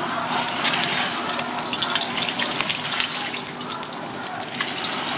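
Egg frying in plenty of hot oil in a steel wok: a steady sizzle thick with fine crackling and spitting.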